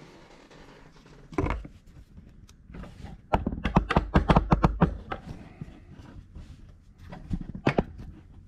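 Handling noise from a camera being picked up and set back down close to its microphone: a thump, then a quick run of sharp taps and knocks, and a few more knocks near the end.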